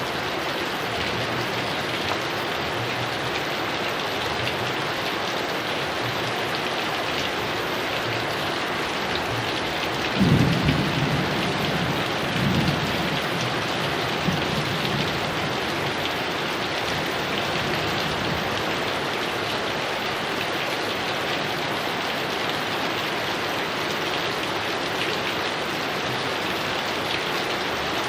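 Heavy rain falling steadily, with a thunderclap about a third of the way in that rolls on in a few lower rumbles over the next few seconds.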